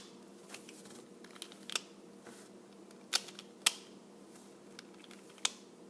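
Sharp plastic clicks from a Pyraminx puzzle as its layers are twisted: about four or five separate clicks at uneven intervals, the loudest a little past halfway.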